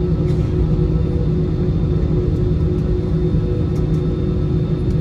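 Airbus A320-216's CFM56 jet engines heard from inside the cabin over the wing: a steady low rumble with several steady whining tones, no spool-up.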